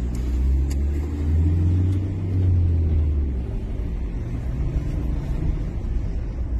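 Car engine and road noise heard from inside the moving car, a low steady drone that is strongest for the first three seconds or so and then eases off.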